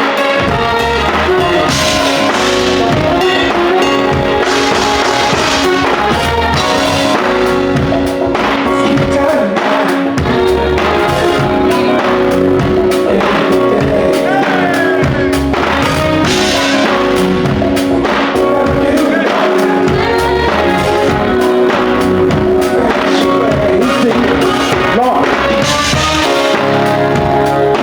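Live band playing steadily: a drum kit keeps time under sustained keyboard or organ chords and bass.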